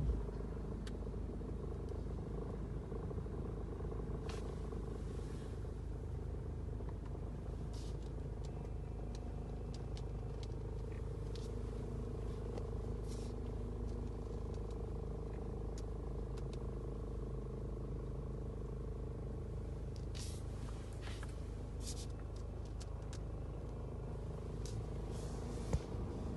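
BMW 3 Series (G20) car running with a steady low rumble and a constant hum, plus scattered light clicks and a sharper click near the end. Among these is an unexplained extraneous noise that the owner finds goes quiet once the car is stopped in park.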